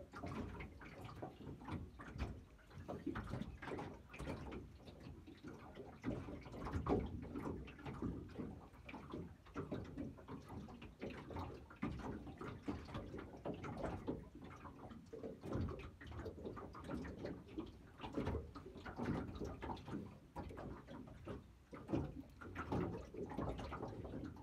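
Small waves lapping and slapping irregularly against the hull of a small fishing boat, with occasional light knocks.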